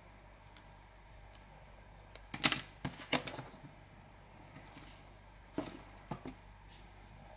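Handling noises of unboxing on a hard tabletop: a cluster of clicks and rustles about two and a half to three and a half seconds in as a coiled USB cable and the box's packaging are set down, then a few lighter taps and knocks near the end.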